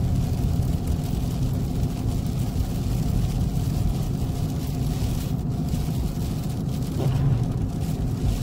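Steady low rumble of a vehicle's engine and tyres while driving at speed.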